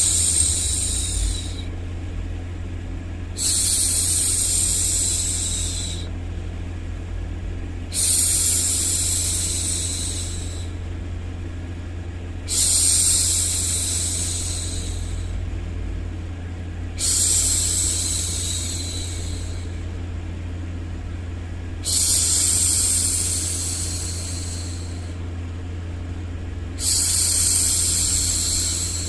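A woman's long 'shhh' hushing sound, repeated seven times at an even pace, each shush starting suddenly and fading over about two seconds, for soothing a baby to sleep. A steady low rumbling white-noise bed runs beneath.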